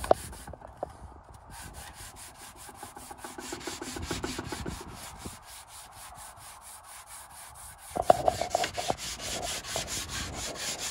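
150-grit sandpaper wrapped on a flat wooden block, rubbed back and forth by hand over wood to level a patch that still sits a little high. Quick, even strokes, about four a second, louder from about eight seconds in.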